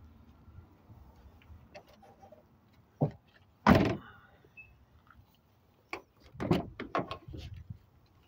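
Mazda CX-5 rear liftgate pulled down and shut: a light knock about three seconds in, then a loud slam. A few seconds later the rear passenger door is unlatched and swung open, with a cluster of clicks and thumps.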